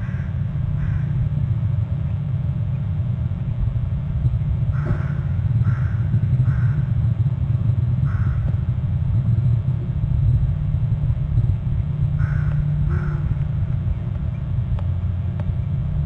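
A steady low rumble on the outdoor nest-camera microphone, with a bird's short harsh calls over it in twos and threes: near the start, around five to seven seconds in, again at about eight seconds and twice around twelve to thirteen seconds.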